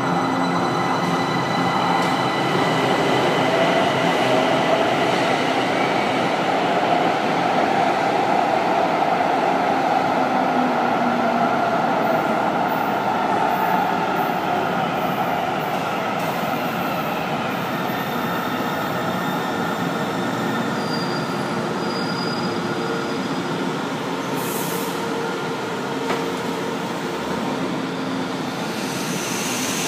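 São Paulo Metro Line 2 trains running through an underground station: a train moving off along the platform, then another train pulling in and slowing to a stop near the end. It is a loud, steady rumble with high whining tones that shift in pitch as the trains change speed.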